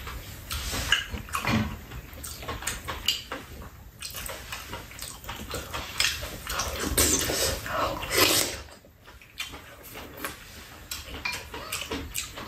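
Close-up eating sounds: chewing and smacking mouth noises from two people, with chopsticks and spoons clicking against bowls and a pan.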